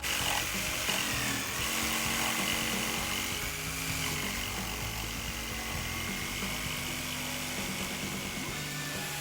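Electric jigsaw running and cutting through wood along a curved line: a steady motor whine with the blade's rasp. Background music plays underneath.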